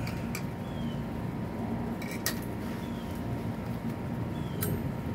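Three or four light metallic clicks from tools and bike parts being handled, over a steady low background hum.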